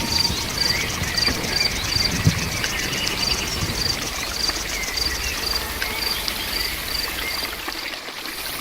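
Crickets chirping in a regular rhythm, about twice a second, over a fast high insect trill and a steady hiss of rain.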